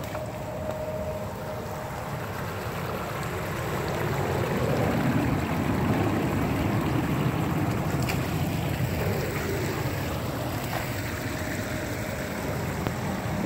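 Small stream of water rushing and splashing over rocks, a steady noise that grows louder around the middle and then eases off a little.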